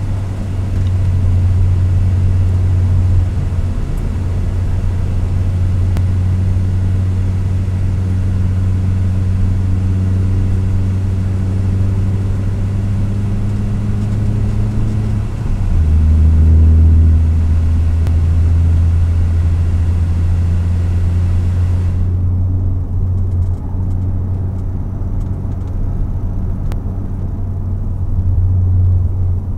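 Hyundai Avante race car engine heard from inside the cabin, droning steadily at moderate revs during a slow formation lap. The note changes about halfway through with a short, louder stretch, matching an upshift from third to fourth gear.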